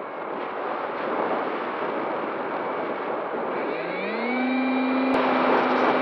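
Wind rushing past an RC plane in flight. About four seconds in, the Skysurfer's electric motor throttles up with a quick rising whine and then holds a steady hum, and a single click comes a second later.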